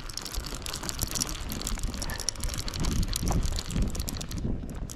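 Wind rumbling on the microphone over rapid, irregular clicking and rattling from a baitcasting fishing reel and tackle as a catfish is fought from a kayak.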